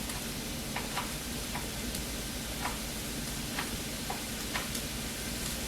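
Chicken frying in a pan with a steady sizzle, broken by scattered light clicks about every half second to second.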